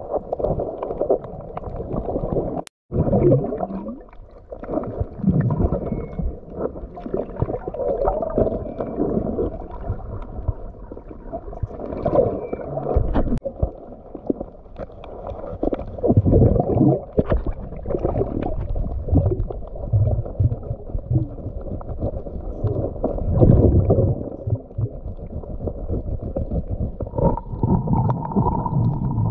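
Muffled underwater noise picked up through a waterproof camera housing: water surging and rumbling as a diver moves and probes among the rocks, with scattered knocks. A short click and a brief dropout about three seconds in.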